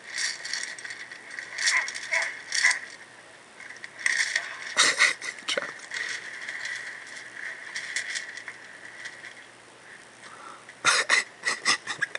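Metal chains rattling and clinking in bursts as someone strains against them, heard as TV episode audio played through small laptop speakers and picked up by a camera. The bursts are loudest about five seconds in and near the end, over a steady thin hiss.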